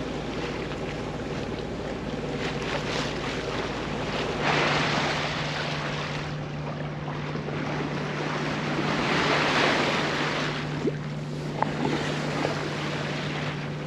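Sailboat moving through choppy water: waves washing along the hull and wind buffeting the microphone, over a steady low hum. The rush of water swells up about four and a half seconds in and again around nine to ten seconds in.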